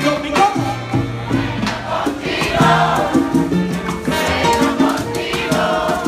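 Live salsa band playing, with congas, timbales, bass and horns over a steady percussion beat.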